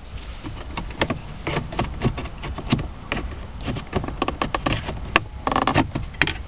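Plastic console trim clips of a 2004 Honda Civic's automatic shifter bezel clicking and creaking as the bezel is pulled up by hand, with a longer creak near the end as the front clips let go. It sounds like breaking plastic, but it is the clips releasing as designed.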